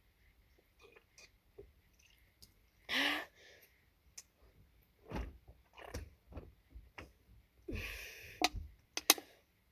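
A person breathing heavily and gasping after chugging a fizzy drink while holding back a burp, with one loud gasping breath about three seconds in and a longer breathy exhale near the end. A few sharp knocks come just before the end.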